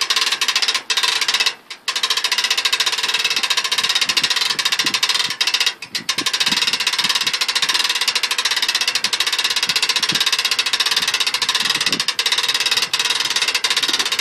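Boat trailer winch running, a loud fast mechanical rattle that stops briefly twice as it hauls the inflatable pontoon boat up the trailer by its rope.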